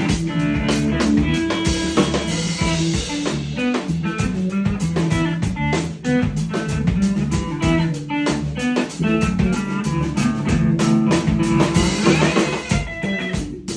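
A live band jam: electric guitar playing lines over a drum kit and bass guitar, with frequent drum strokes and steady low bass notes throughout.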